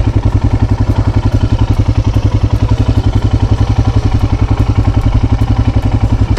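Royal Enfield Himalayan's single-cylinder engine idling close to the microphone: a steady, even beat of about a dozen firing pulses a second, with no revving.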